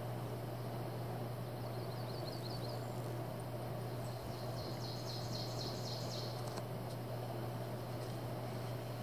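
Birds singing over a steady low hum and hiss: a run of short, high, falling chirps about two seconds in, then a denser flurry of high notes around five to six seconds in.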